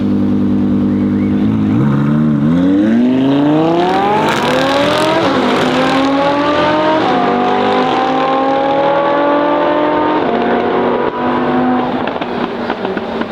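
Audi R8 V10 Performance's V10 engine with an aftermarket Capristo exhaust accelerating hard. The note climbs steadily from low revs, with two quick upshifts about five and seven seconds in. The revs drop about ten seconds in, and the engine then runs at a steadier note.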